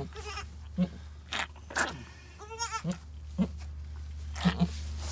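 A nanny goat licking her newborn kid clean: short wet licking clicks and brief low murmurs, with one short wavering bleat about two and a half seconds in.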